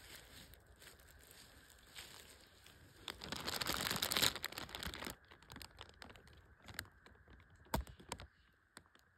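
Black plastic trash bag over a wire live trap crinkling. The crinkling swells into a loud burst of about two seconds near the middle, then gives way to a few sharp crackles.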